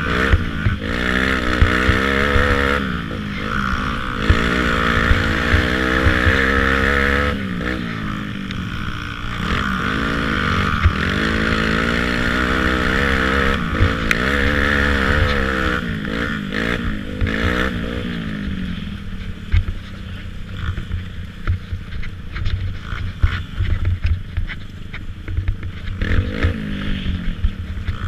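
Youth racing ATV's engine revving up and down hard with the throttle, its pitch rising and falling. A little over halfway through it drops to a lower, quieter, steadier note, with knocks and rattles from the machine over rough ground.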